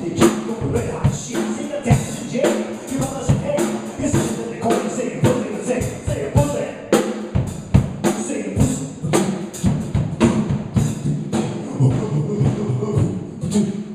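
Hip hop track playing, with a steady drum-kit beat of kick, snare and tambourine hits.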